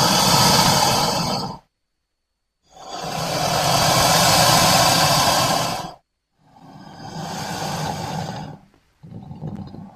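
Crocodile hissing growls from a creature sound-effects library: a series of long, breathy calls, each a second to three seconds long with short gaps between them, the last two quieter.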